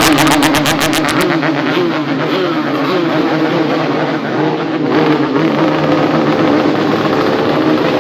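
Motorcycle engine running at a fast idle and being blipped, its pitch wavering up and down.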